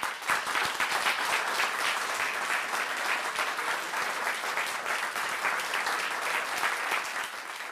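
An audience applauding, dense clapping that starts all at once and holds steady, easing off near the end.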